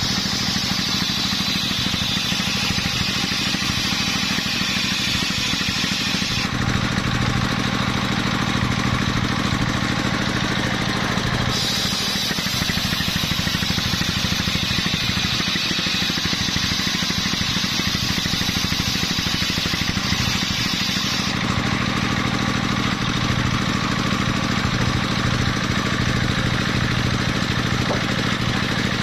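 Engine-driven sawmill circular saw running steadily while its large blade rips coconut-palm timber. The high cutting noise of the blade in the wood runs for about the first six seconds, drops back, and returns from about twelve to twenty-one seconds in.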